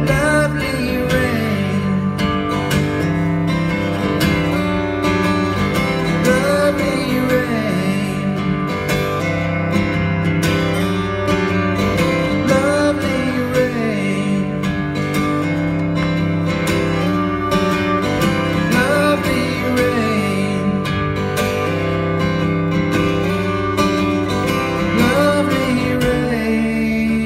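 Acoustic guitar played steadily, with a man singing over it into a microphone.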